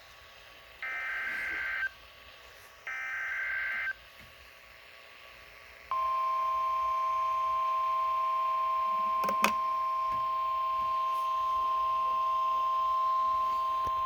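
NOAA Weather Radio SAME end-of-message data bursts: two short buzzy digital bursts a second apart, marking the end of the previous warning. About six seconds in, a steady weather radio alert tone near 1 kHz starts and holds, announcing a new warning, with one brief click partway through.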